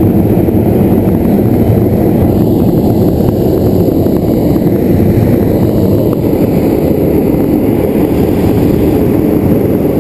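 Hot-air balloon propane burner firing in one long, steady, loud blast during hot inflation, heard close up and muffled.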